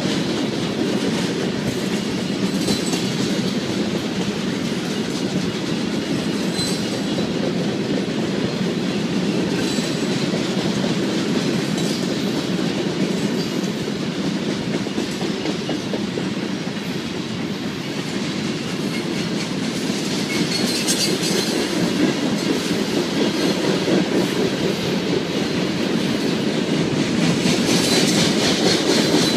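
A Union Pacific freight train's covered hopper cars rolling past: a steady rumble with the clickety-clack of wheels over rail joints. Brief high-pitched wheel squeaks come now and then, more strongly about two-thirds of the way through and near the end.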